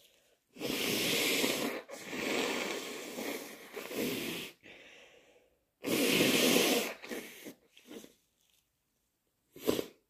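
A person blowing their nose and sneezing, wet and messy. There are several long, forceful blasts of a second or more with short breaks between them, and a short sharp burst just before the end.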